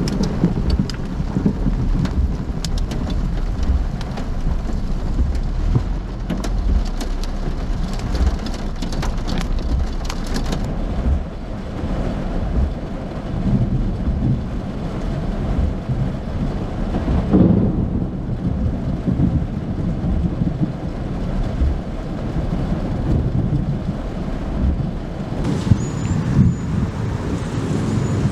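Severe thunderstorm: heavy rain and wind as a dense, steady rush with a heavy low rumble. Many sharp pattering impacts stand out over roughly the first third.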